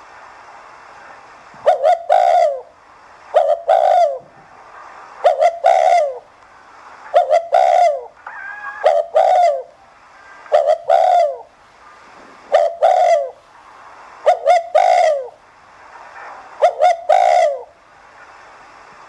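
Spotted dove cooing: a short phrase of two or three quick coos, repeated at an even pace about every two seconds, ten times over.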